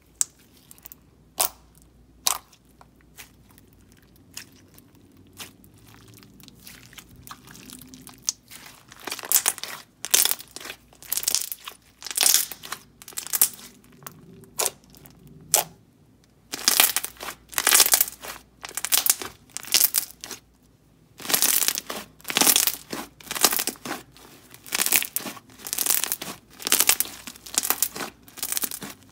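Glossy, stretchy slime with foam beads being pressed and squished by hand, making wet clicks and pops. The clicks are scattered at first; from about nine seconds in they come in quick, loud runs with brief pauses.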